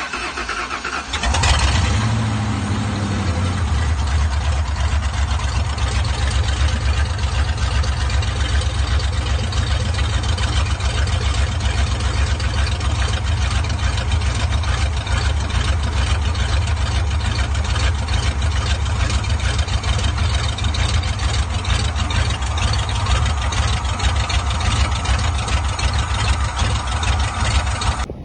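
A vehicle engine starts about a second in and then runs steadily with a deep low rumble.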